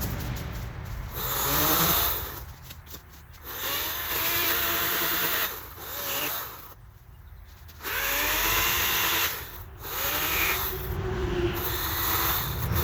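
Handheld gas-powered yard tool engine, a chainsaw or string trimmer, revving up and dropping back in repeated bursts of a second or two, its pitch rising and falling with the throttle.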